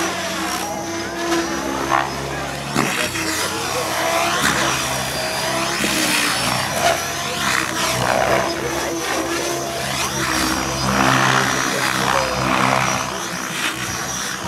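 Electric Mikado Logo 700 XXtreme RC helicopter flying 3D aerobatics: its main rotor blades swoosh and its Kontronik Pyro motor whines, the sound sweeping up and down in pitch again and again as the helicopter manoeuvres.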